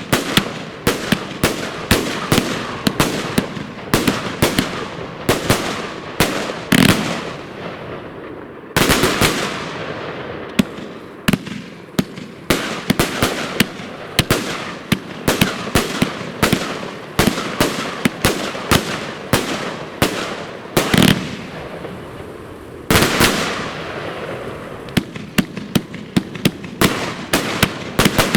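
Fireworks going off in quick succession: a dense run of sharp bangs and crackles, with a few louder blasts about 9 seconds in and again near the 21 and 23 second marks.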